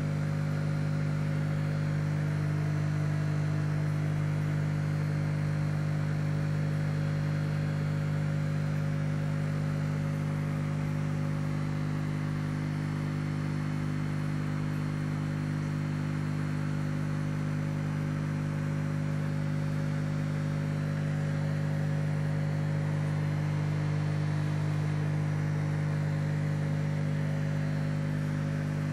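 Aquarium pump humming steadily, an even electric drone with no change.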